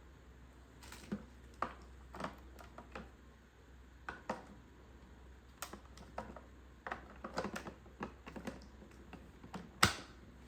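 Scattered light clicks and taps of the plastic parts of a wet/dry vacuum mop being handled, with one sharper click near the end.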